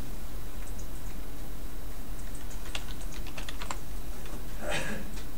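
Computer keyboard typing: scattered keystrokes, most of them in a short cluster a little past the middle.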